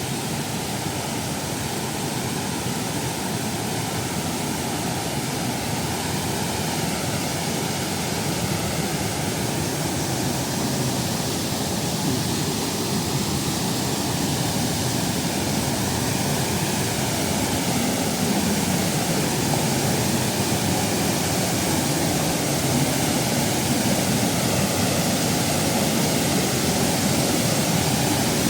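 Waterfall: a steady rush of falling water that grows gradually a little louder.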